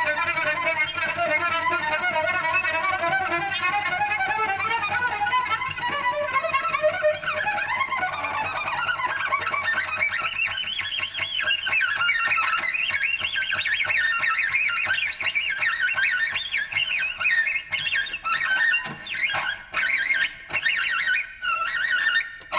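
Solo cello bowed, with vibrato on sustained notes. About six seconds in, the line climbs into the instrument's high register, and in the last few seconds it breaks into short, separated notes with brief gaps.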